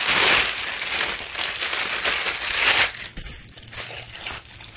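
Plastic packaging crinkling and rustling as it is opened and a folded latex mask is pulled out. It comes in loud bursts near the start and again about two and a half seconds in, then goes quieter.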